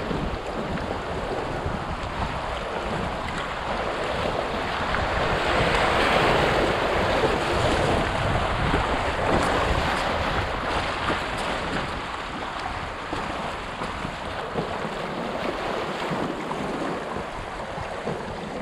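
Shallow river water rushing over a gravel riffle and splashing against the bow of an inflatable kayak, swelling louder through the middle as the boat runs the rougher water. Wind buffets the microphone underneath.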